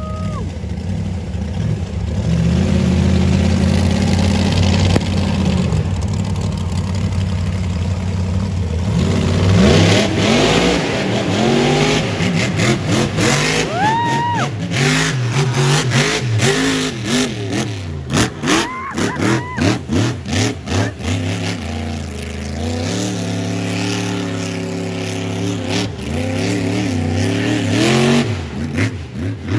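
1,500-horsepower competition monster truck engine running steadily, then revving hard in quick rises and falls from about ten seconds in as the truck drives the dirt course, settling into a steadier drone near the end.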